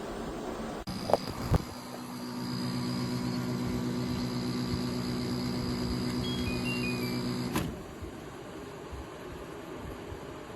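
An electric appliance's motor switches on after a couple of clicks, hums steadily for about six seconds, then stops with a click.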